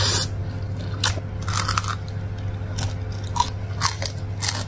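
Close-miked eating: a loud slurp of Samyang carbonara noodles at the start, then a series of short, sharp crunches as crisp fried wontons are bitten and chewed.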